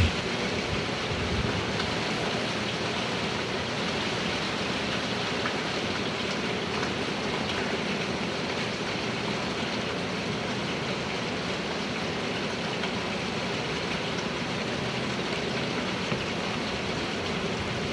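Steady rain from a hurricane falling hard, an even hiss with no let-up.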